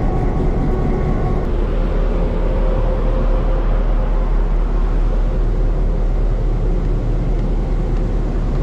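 Diesel locomotive engine idling with a steady, smooth low rumble.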